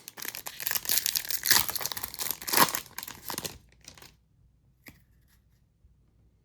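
A foil Topps Chrome trading-card pack being ripped open: crackly tearing and crinkling of the wrapper that stops about three and a half seconds in, followed by a few faint rustles.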